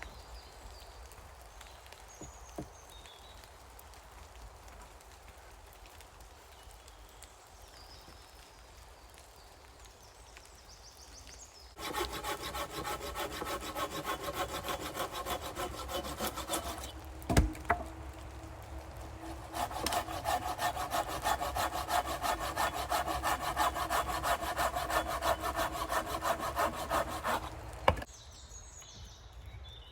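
Hand saw cutting through wood in fast, even strokes, the blade ringing as it goes. The sawing starts after a long faint stretch, pauses briefly around a single sharp knock, resumes, and stops abruptly near the end.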